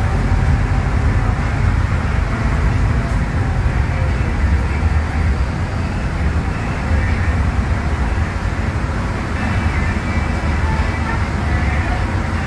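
Interior sound of a Scania K250UB midibus under way: the Scania DC09 five-cylinder diesel runs with a steady low engine note, mixed with road and body noise in the passenger cabin.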